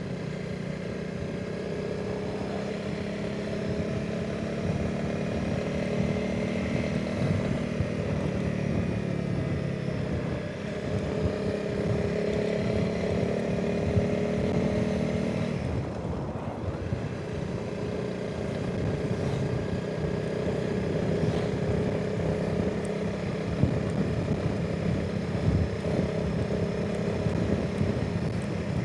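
Honda CRF300 Rally's single-cylinder engine running under way, its note rising and falling with the throttle, with a dip about halfway through before it picks up again. Wind noise on the helmet microphone runs underneath.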